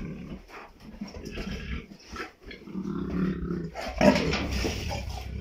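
Young lions growling, with a sudden louder outburst about four seconds in.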